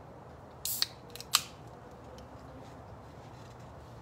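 Kitchen scissors snipping: a quick cluster of three or four sharp snips a little under a second in, the last one the loudest.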